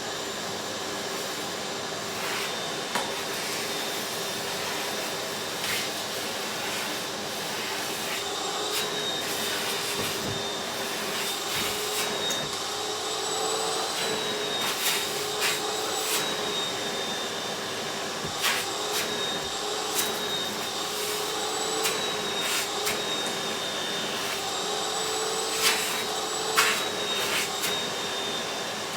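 Vacuum cleaner running steadily, its motor whine wavering slightly in pitch, with irregular sharp clicks and crackles scattered throughout as debris is sucked up.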